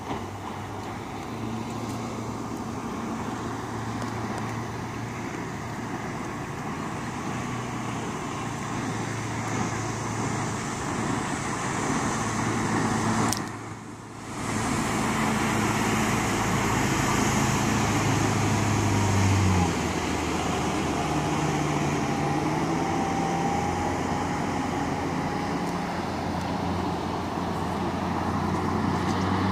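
Bayliner 2655 cabin cruiser running under power as it passes, a steady low engine drone over the rush of its hull through the water. The engine note drops about two-thirds of the way through.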